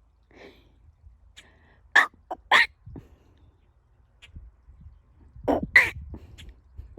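A pet bird giving short, sharp calls in quick clusters: three about two seconds in and two more near the end.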